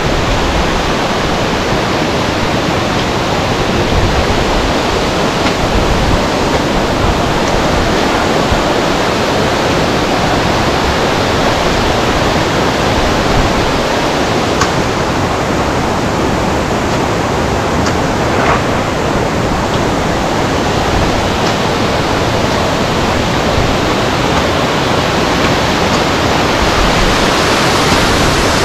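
Close up to the Ava Ore waterfall, water pouring down and splashing as a loud, steady, unbroken rush.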